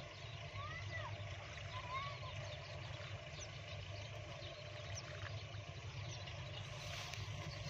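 Steady low hum of an engine running in the distance, with a few short, high chirps about one to two seconds in.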